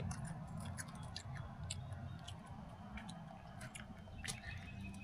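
Someone chewing crisp star fruit: soft, irregular crunching clicks over a low steady hum.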